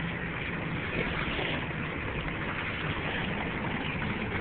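Steady outdoor background noise of wind and shallow water, with a faint low hum underneath and no distinct event.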